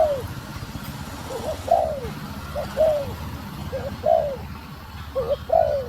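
Female spotted dove cooing: pairs of coos, a short note followed by a longer arched one, repeated about once a second.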